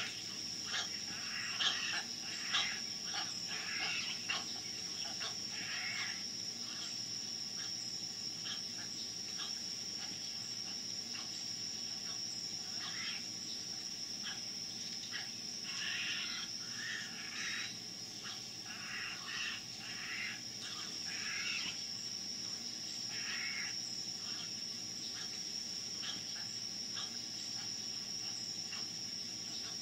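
Birds giving short chirping calls at irregular intervals, in clusters near the start and again in the middle, over a steady high-pitched drone.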